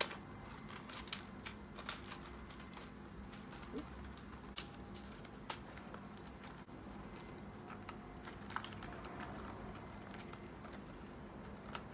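Soft, scattered clicks and rustles of a plastic pill blister pack being pushed into a small Fendi zip coin pouch packed with cards, then the pouch's zipper being worked closed near the end.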